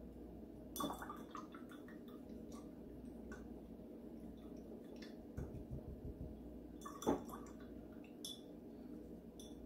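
Paintbrush being rinsed in a glass jar of water, with light swishing and clinks of the brush against the glass. The two loudest knocks come about a second in and about seven seconds in.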